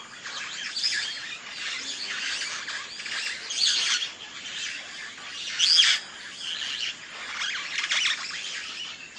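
Birds chirping and calling over a dense chorus of high calls, with louder calls standing out about a second in, near four seconds, at about six seconds (the loudest) and near eight seconds.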